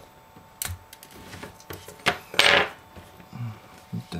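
Small parts and tools being handled on a work surface during a phone screen repair: a few sharp clicks and taps, then a brief scraping rustle about two and a half seconds in, the loudest sound, and soft knocks near the end.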